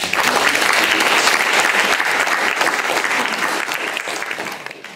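Audience applauding with many hands clapping, fading over the last second before it cuts off.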